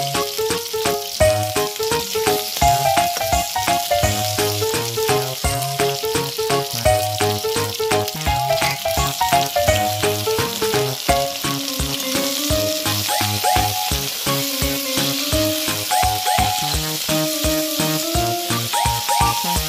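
Crab pieces, onions, garlic and green chillies sizzling as they fry in oil in a kadai, stirred now and then with a spatula. Background music with a steady beat and a melody plays over it throughout.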